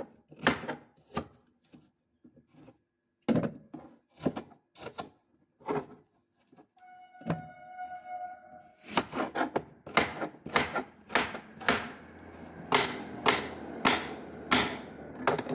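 A run of irregular knocks and thunks as cut apple pieces are handled and put into a blender, sparse at first and coming thick and fast in the second half. A short held tone sounds briefly a little past the middle.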